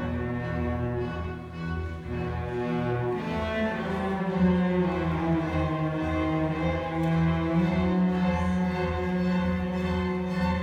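A small string ensemble of cellos and violins playing a piece in long bowed notes, with the cellos' low notes the loudest part.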